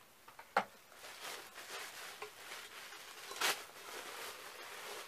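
Cardboard box and packaging being rustled and handled during unpacking, with a sharp tap about half a second in and a louder brief rustle about three and a half seconds in.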